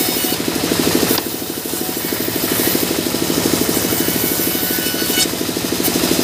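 Large sawmill band saw running with a fast, steady throb, its blade ripping through a mahogany slab with a hissing rasp that is loudest about half a second in and again about five seconds in.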